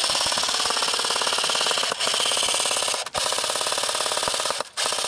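Airsoft gun firing on full auto: a fast mechanical rattle in four long bursts, with brief breaks about two, three and four and a half seconds in.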